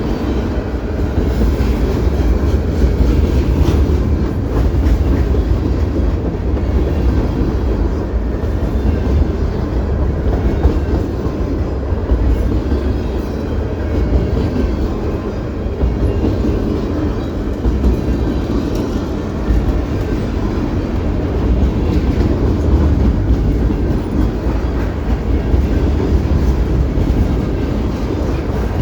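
CP Rail train's cars rolling past on the track, a loud, steady rolling noise heaviest in the low end, with no horn sounding.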